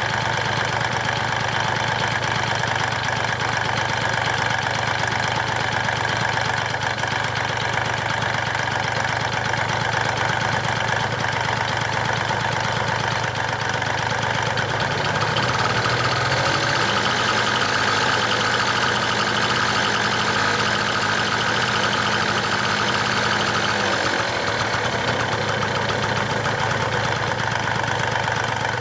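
Honda Stream's four-cylinder engine running with a rattling knock ("gara-gara"), from play in a connecting-rod big end on the crankshaft, a worn rod bearing. It idles, is brought up to a higher speed and held for about ten seconds from about halfway in, then drops back to idle.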